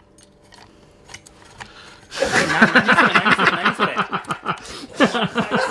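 Hearty laughter in rapid pulses breaks out about two seconds in, after a quiet start with a few faint clicks.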